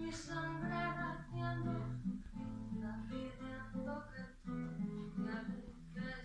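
Music: acoustic guitar playing, with plucked and strummed notes.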